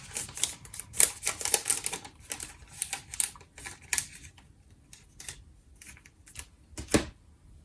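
Trading cards and their packaging being handled by hand: a quick run of small clicks and taps, thinning out after a few seconds, with one louder tap near the end.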